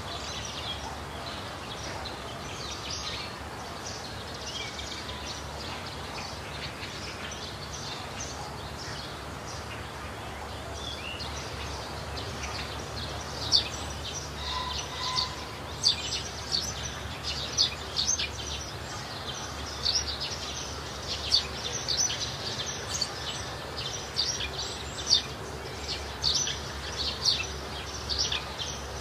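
Birds chirping with short, high calls, sparse at first, then denser and louder from about halfway through, over a steady low background rumble.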